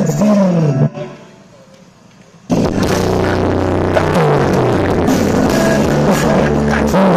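Rock music with guitar: a guitar line slides down in pitch, drops to a quieter stretch, then the full band with drums and heavy bass comes in about two and a half seconds in.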